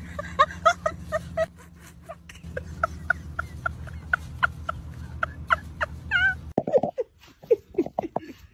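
A rapid series of short, clipped animal calls, several a second, over a low steady hum. About six and a half seconds in they stop abruptly, giving way to a few scattered lower sounds.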